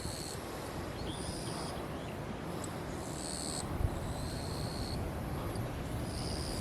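Forest ambience: a steady background hiss and rumble with repeated high, steady whistling calls, each about half a second long, coming every second or two.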